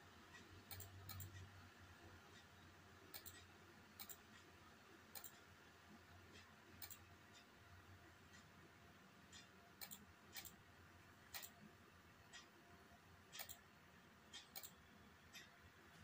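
Faint, sharp clicks, irregularly spaced and sometimes in quick pairs, about fifteen in all, as online bullet chess moves are played on a computer.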